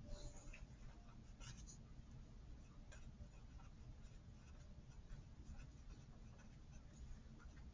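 Faint scratching of a felt-tip marker writing on paper, in short strokes.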